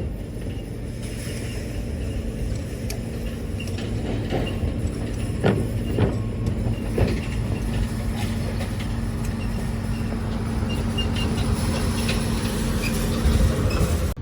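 An engine running steadily, its hum growing slightly louder over the first few seconds, with a few short knocks about five to seven seconds in.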